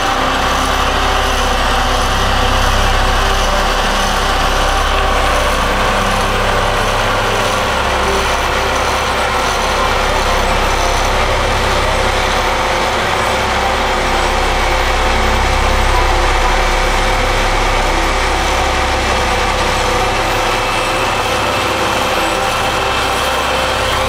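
Diesel engines of a CAT 1055D asphalt paver and an Aztec SB-2500 material transfer vehicle running together under load while paving, a steady, unbroken machine drone.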